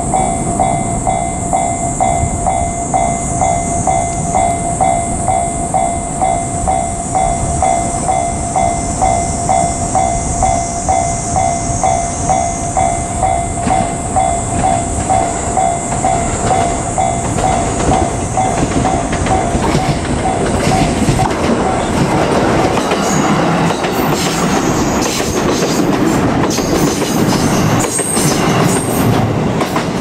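Level-crossing warning bell ringing about twice a second as a JR Kyushu 787-series electric express train approaches and passes. The train's running noise builds from about halfway and covers the bell, with wheels clattering over the rails in the last several seconds.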